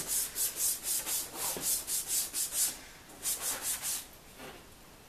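Hand wet-sanding a plastic car headlight lens with a sanding pad, quick back-and-forth scrubbing strokes about four a second, done to take off the yellowed surface. A short pause just before three seconds in, a brief second run, then the sanding stops about four seconds in.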